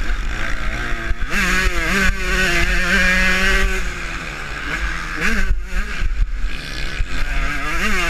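Husqvarna TC125 two-stroke motocross engine revving hard while riding, its pitch climbing, holding and dropping away again and again as the throttle is opened and shut, with wind buffeting the mounted camera's microphone.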